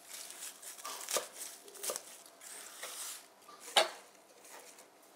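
Kitchen knife cutting a bunch of fresh basil on a wooden board: a few sharp taps of the blade over the rustle of the leaves, the loudest near the end, then the leaves rustling as they are pushed into a plastic blender jug.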